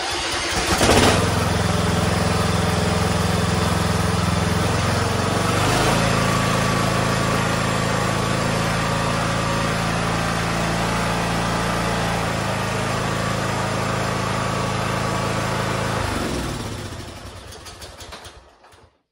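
Replacement Kohler engine on a Toro TimeCutter zero-turn mower starting up and running, its note rising about six seconds in as the throttle is brought up and shifting again around twelve seconds. It then shuts off and runs down near the end. The mower blades do not engage, which the owner puts down to the PTO clutch or its wiring.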